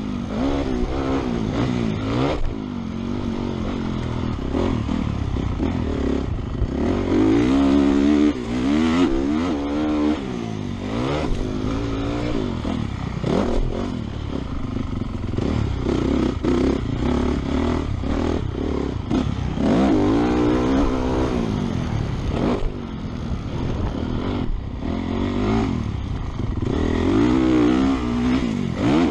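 Honda 450 four-stroke single-cylinder motocross bike racing on a dirt track, heard from the rider's helmet. The engine revs up and drops back over and over as the throttle is opened and shut through the corners and straights.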